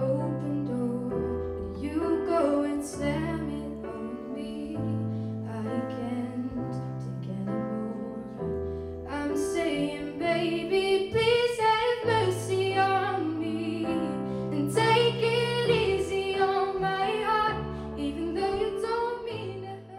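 A young woman singing into a microphone over a piano accompaniment.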